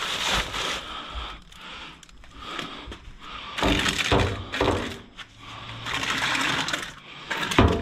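Rustling and knocking as bagged food and boxes are handled and moved, in irregular bursts with a few dull thunks.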